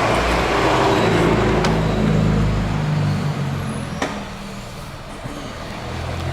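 Nissan Livina's 1.6 16-valve K4M four-cylinder engine revving in gear with the driven wheels spinning freely off the ground. The revs ease off about three seconds in, and there is a single sharp click about four seconds in.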